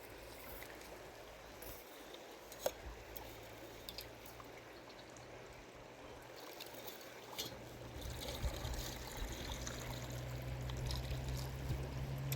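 Water trickling, with a few light clicks. A low steady hum comes in about two-thirds of the way through and grows louder.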